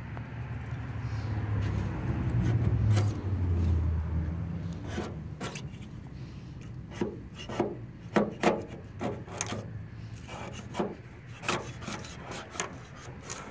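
Razor-blade scraper scraping paint off the bare steel of a 1972 Mercury Cougar body panel, in short, sharp, scratchy strokes coming every half-second to second from about five seconds in, after a low rubbing rumble at first. The paint lifts off easily, which the owner takes for the sign of a poor paint job.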